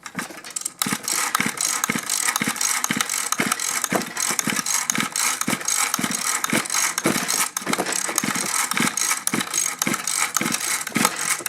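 Mantis mini tiller's small two-stroke engine being cranked over and over with its recoil pull-starter during a compression test, with a compression gauge in the spark plug hole, so it turns over without firing. It makes a rattling whirr with a regular beat about twice a second.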